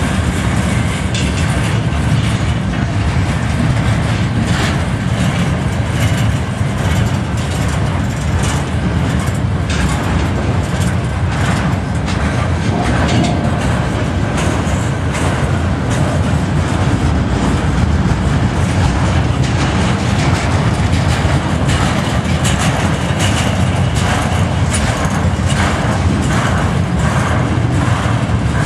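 Freight train flatcars loaded with steel slabs rolling past at close range: a steady heavy rumble of steel wheels on the rails, with many short knocks and clanks from the cars.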